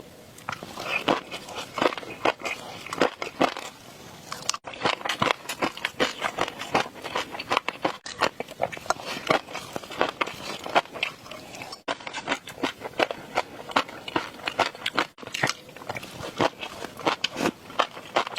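Close-miked ASMR eating sounds: a dense run of crisp, crackling bites and wet chewing clicks. There are brief silent breaks about every four seconds where clips are joined.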